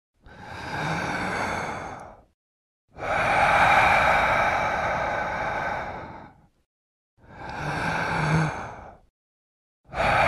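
Long, heavy breathy exhales like sighs: three drawn-out breaths, each swelling and fading, with dead silence between them and a fourth starting near the end.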